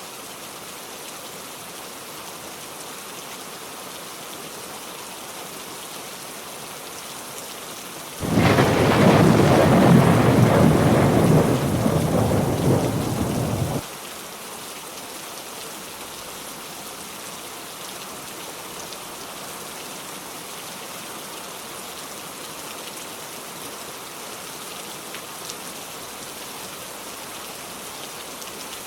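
Steady heavy rain falling, with a loud rumble of thunder about eight seconds in that lasts five or six seconds and cuts off suddenly.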